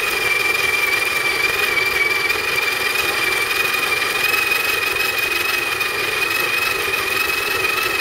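Breville BCG800 burr coffee grinder running through a full automatic dose, grinding coffee beans straight into a portafilter. Its motor gives a steady whine with a high tone that holds one pitch throughout.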